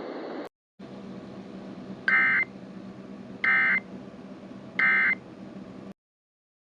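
Three short Emergency Alert System end-of-message data bursts, the chirping digital tones, about a second and a half apart over a steady background hiss and hum. All sound cuts off abruptly near the end.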